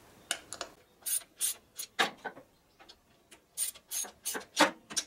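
Hand ratchet wrench clicking in short, irregular bursts as it is swung back and forth, tightening valve cover bolts by hand.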